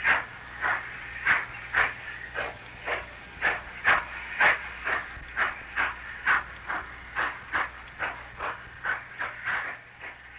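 Denver & Rio Grande Western narrow-gauge K-36 2-8-2 No. 483 steam locomotive working slowly, its exhaust chuffing evenly at about two beats a second, each beat a sharp hiss of steam.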